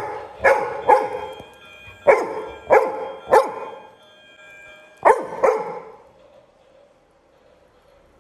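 Labrador retriever barking: about eight loud barks in three quick groups, stopping about six seconds in.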